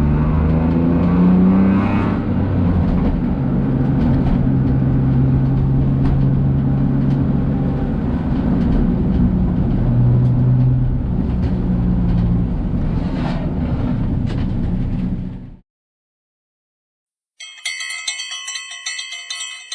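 Daihatsu Esse engine running under load while driving, its pitch rising over the first couple of seconds and then holding steady. The sound cuts off suddenly about three-quarters of the way through. After a short silence, a bright bell-like chime plays.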